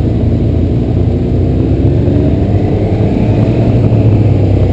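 Motorcycle engine running at road speed, a loud steady rumble, with a higher whine that rises and falls again about three seconds in.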